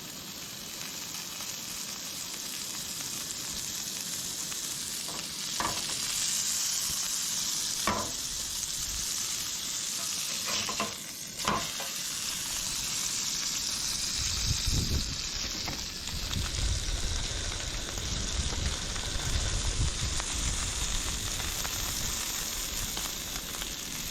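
Hamburger patties frying in melted butter in a hot pan: a steady high sizzle, with a few sharp clicks in the first half as butter is spooned over them. A low rumble comes in about halfway through.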